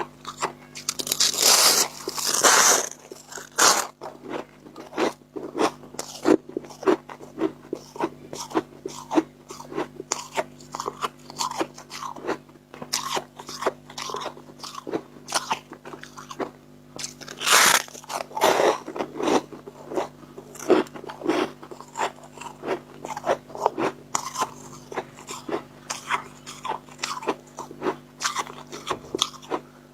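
A person biting and chewing dry chunks of freezer frost close to the microphone: a dense run of crunches, with louder crunching bites about two seconds in and again about eighteen seconds in.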